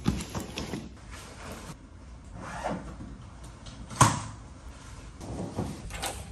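Knocks and clicks of someone handling things and moving about a room, the loudest a sharp knock about four seconds in; near the end a door's lever handle clicks.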